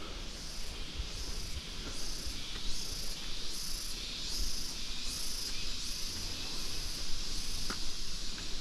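Insect chorus in tropical forest: a steady high-pitched chirring that pulses about twice a second.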